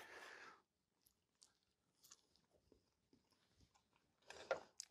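Faint chewing of a bite of hamburger, mostly near silence with small scattered mouth clicks. A brief noisy rush comes at the start and again a little before the end.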